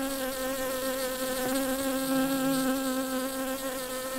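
Buzzing of a flying bee: one steady drone with a clear pitch that wavers slightly, laid on as a sound effect for an animated bee.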